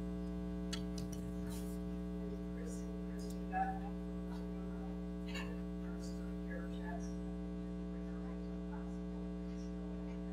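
Steady electrical mains hum, with a few faint scattered clicks and rustles over it.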